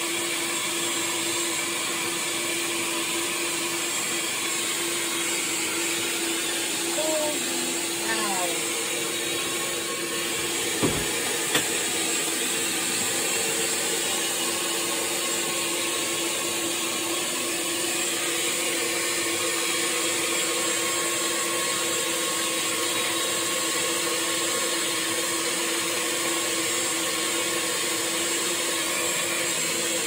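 Vacuum motor running steadily with a constant whine, with two sharp knocks about eleven seconds in.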